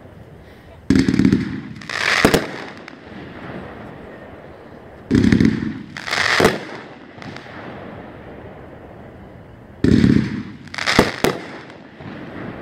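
A Winda "Game On" 500-gram fireworks cake firing three volleys. Each is a sudden low launch thump followed about a second later by a burst of sharp cracking breaks.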